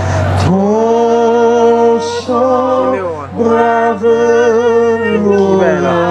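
A man and a woman singing a hymn into microphones through a public-address system, in long held notes with vibrato. A steady low hum runs underneath.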